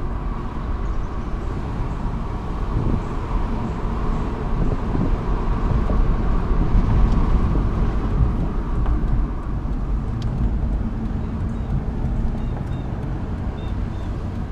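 Cabin noise of a 2009 Mercedes-Benz E550 driving: a steady low road and engine rumble. A few faint, brief high-pitched chirps come through near the end, possibly the intermittent squeal the owner is trying to track down.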